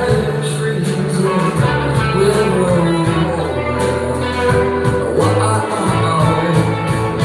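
A live band of electric keyboard, drum kit and electric guitar playing, with held low notes shifting underneath and a steady beat of cymbal strokes.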